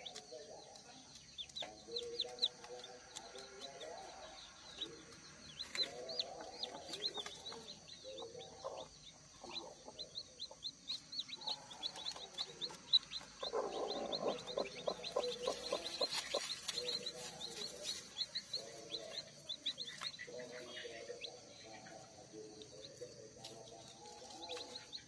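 Newly hatched ayam kampung chicks peeping rapidly and continuously, high and thin, over their broody hen's low, soft clucking. Around the middle it grows louder and busier for a few seconds.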